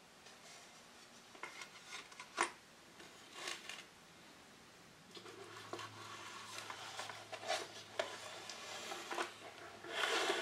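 Hands handling an antique mirror's wooden frame and glass pieces on a board: scattered light clicks and knocks, then a longer scraping rustle near the end as the frame is turned over and slid on the board.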